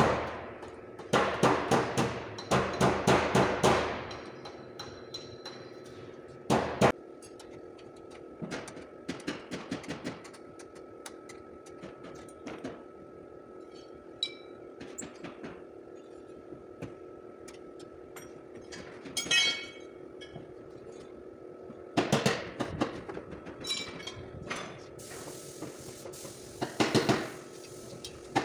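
Hammer blows on car body sheet metal during panel-beating dent repair: fast runs of sharp strikes, a single heavy blow, and lighter taps between pauses.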